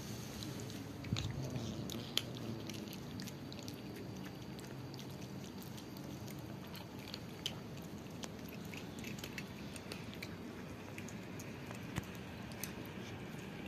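Domestic cats chewing dry kibble: a run of crisp, irregular crunches, with a few sharper cracks standing out.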